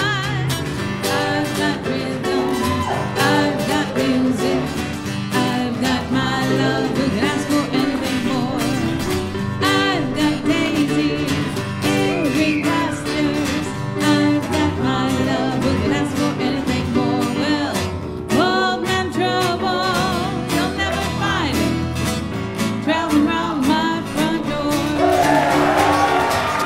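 Live acoustic guitar playing with singing over it, a country-style song.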